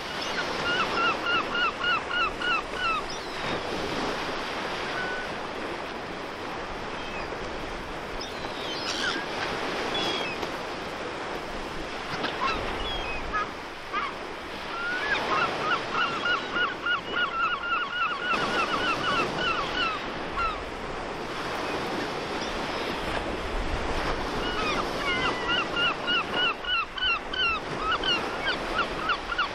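Gulls calling in quick runs of short sharp notes, in three spells near the start, in the middle and near the end, over a steady wash of surf.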